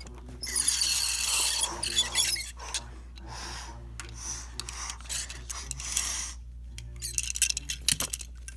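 Plastic toy trucks being pushed and scraped over toy ramps and a rug in several rasping bursts, with a quick run of light plastic clicks and clatter near the end.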